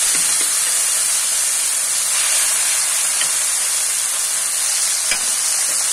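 Pieces of tilapia frying in very hot oil in a kadhai: a steady sizzle with scattered crackles and one sharper pop about five seconds in.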